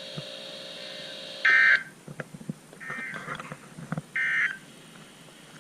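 A NOAA weather radio sends the Emergency Alert System end-of-message code that closes a severe thunderstorm warning: three short bursts of buzzy digital data tone about 1.3 s apart, after a faint steady hum.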